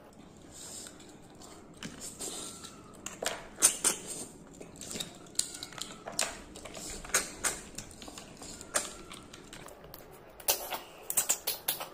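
Eating sounds: irregular clicks and taps of utensils and food against a dish, with chewing, in short clusters.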